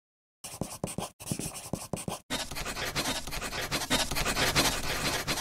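Pen scratching quickly over paper: two short runs of strokes with brief breaks, then a longer unbroken run of scratching.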